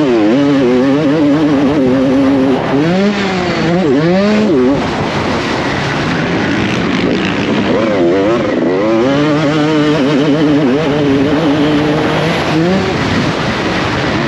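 2006 Honda CR250R two-stroke single-cylinder motocross engine ridden hard, its note climbing and dropping over and over as the throttle opens and closes, with wind rushing over the microphone.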